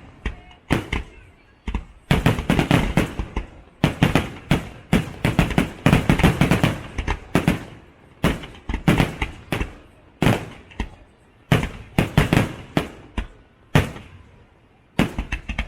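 Fireworks display: a rapid succession of sharp bangs and crackling reports, coming in clusters with short gaps, each with a brief rumbling echo.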